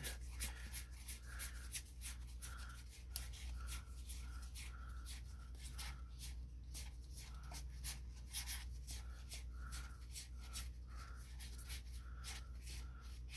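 Trading cards being handled and flipped through by hand: a quick, irregular run of soft card slides and flicks.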